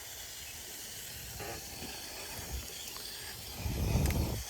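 Steady hiss of water running from a garden hose, with a brief low rumble near the end.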